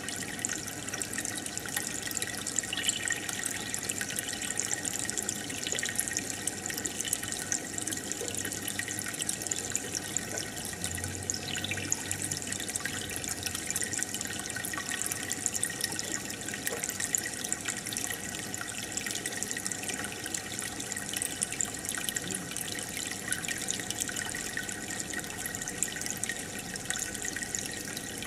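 Home aquarium water bubbling and trickling steadily, the stream of air bubbles and filter flow breaking at the surface in many fine pops and splashes.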